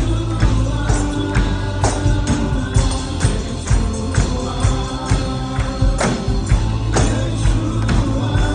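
Live church worship music with a steady beat, tambourine and singing voices.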